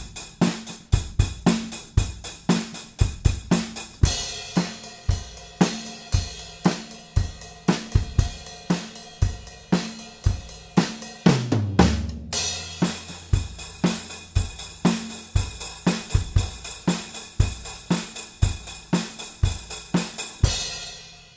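Acoustic drum kit playing a steady rock beat of kick, snare, hi-hat and cymbals, with a tom fill about halfway through that ends on a low ringing tom. This is the original close-miked home-studio recording before any sample replacement. Near the end the beat fades out.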